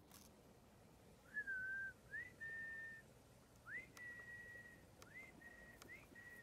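A person whistling about five clear notes in a row, each sliding up into a held pitch, to call the corgi puppies.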